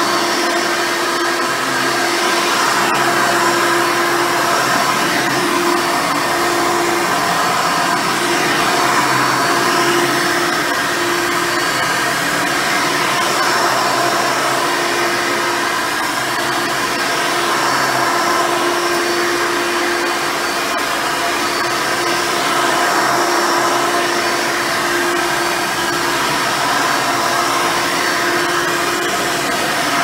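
Hoover Elite 350 upright vacuum cleaner, fitted with a higher-performance 7-amp motor, running steadily as it is worked back and forth over carpet. Its motor gives a continuous whine, the level swelling and easing slightly.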